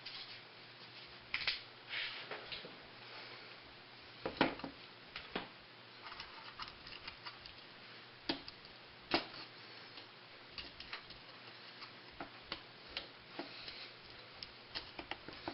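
Scattered small metallic clicks and scrapes at irregular times as the coiled recoil-starter spring of a 1981 Honda ATC 110 is wound tight by hand and worked into its case.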